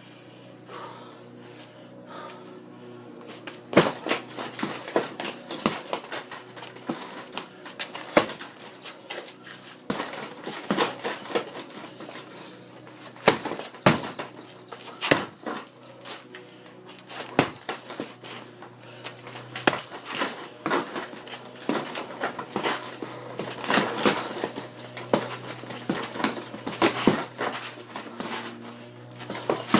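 A dog's panting and whimpering, with many irregular knocks and clatters from about four seconds in.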